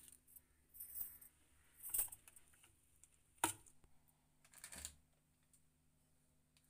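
A few short clicks and scrapes of a spoon and hands working against an enamel bowl while chicken wings are mixed with spices, the sharpest a single clink about three and a half seconds in. A faint steady hum underneath.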